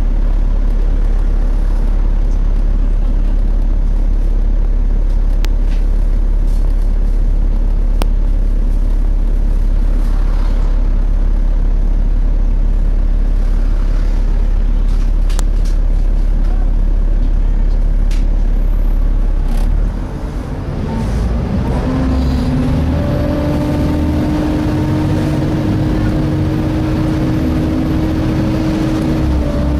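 Volvo B7TL double-deck bus's engine cooling fan and engine heard inside the bus, a loud steady hoover-like drone while the bus stands. About twenty seconds in the sound dips and changes as the bus moves off, with steady whining tones running over the engine.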